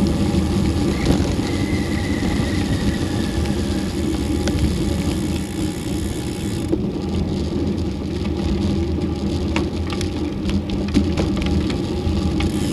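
Wind buffeting the action camera's microphone on a moving road bike, with tyre noise on rough, cracked asphalt. About seven seconds in the higher hiss drops away, and scattered clicks and crackles come through over the low wind rumble.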